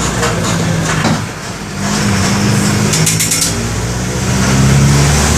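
Mercedes-Benz OM-924 LA four-cylinder turbodiesel of an OF-1722M bus running under load. The engine note drops off briefly about a second in, then picks up again and grows louder toward the end, with a short rattle of clicks about three seconds in.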